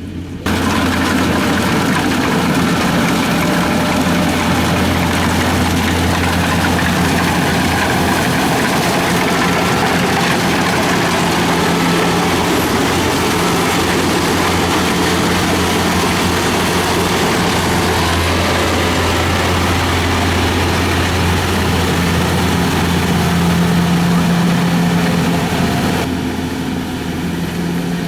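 Kubota DC-70 combine harvester's diesel engine running steadily under load while harvesting, a loud low drone. It comes in abruptly about half a second in, and its upper part thins out near the end.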